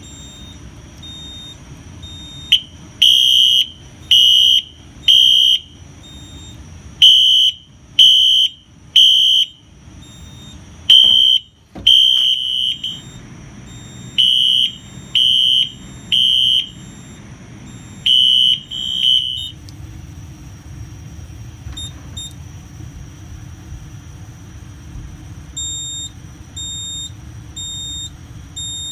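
Fire alarm horn strobe (Wheelock HSR Exceeder) sounding code 3 after the smoke detector is activated: high beeps in groups of three, about one a second with a pause between groups, repeating several times before stopping abruptly. A faint high beeping goes on underneath.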